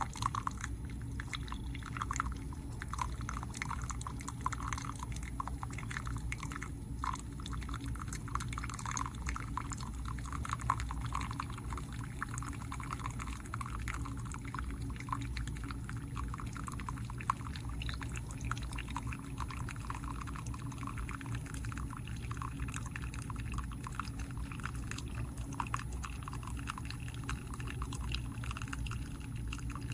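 Tastyle single-serve coffee maker brewing: a steady low hum with liquid pouring and trickling.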